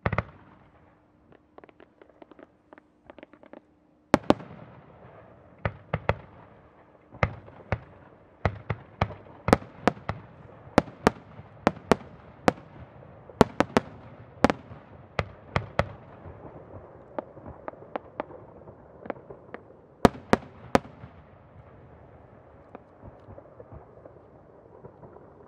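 Aerial strobe firework shells fired in a rapid volley and bursting. A sharp bang, then a patter of small crackles, then from about four seconds in a dense run of sharp bangs with a rumble between them. It eases off after a last loud pair of bangs about twenty seconds in, leaving faint crackling.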